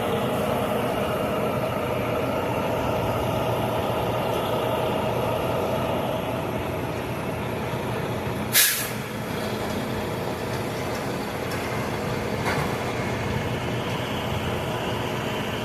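Loaded semi grain truck's diesel engine idling steadily, with one short, sharp air hiss about halfway through and a fainter hiss a few seconds later.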